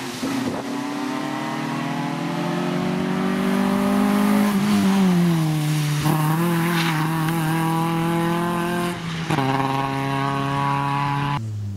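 Fiat Seicento rally car engine running hard under acceleration. The pitch climbs for about four seconds, drops sharply about halfway through, holds, and then dips and climbs again near the end.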